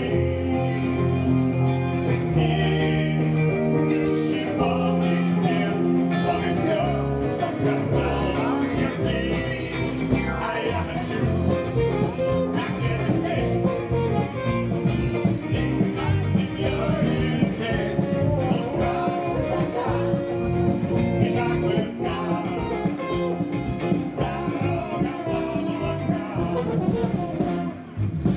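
Band music playing, with held instrument notes over a steady beat.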